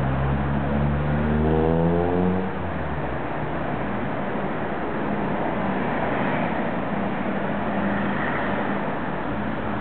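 Car engine running: about a second in, its pitch rises for a second and a half as it revs, then it drops back to a steady, noisy rumble.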